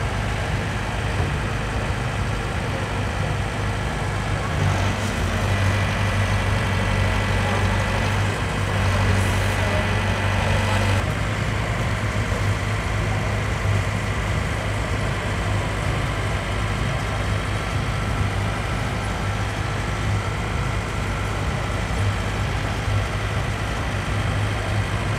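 Heavy truck's diesel engine idling steadily, a constant low hum with no change in speed.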